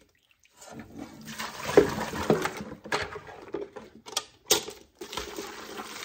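Soapy dishwater being poured between a metal pot, a plastic bucket and a kitchen sink, gushing and splashing in uneven pours, with a few sharp knocks along the way.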